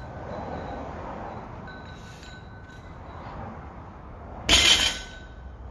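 Steady outdoor background noise with a faint high tone that comes and goes. About four and a half seconds in, a single loud, noisy burst lasts under half a second.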